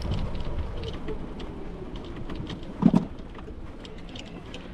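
Golf cart rolling, a low rumble with light rattling clicks, fading gradually. A short, louder low thump comes about three seconds in.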